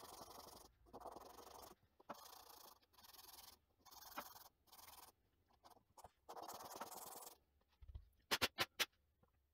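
A white resin casting is rubbed back and forth on sandpaper in steady dry-sanding strokes about one a second, grinding away the surplus resin around the part. Near the end the sanding stops, and there is a low thump followed by four quick sharp clicks, the loudest sounds.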